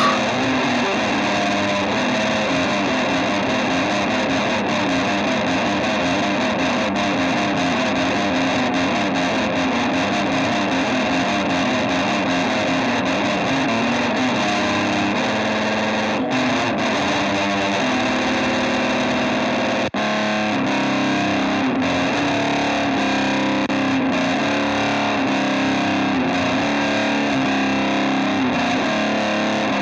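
Instrumental stretch of a rock song: heavily distorted electric guitar played through effects, changing notes in its low register, with a momentary drop-out about twenty seconds in.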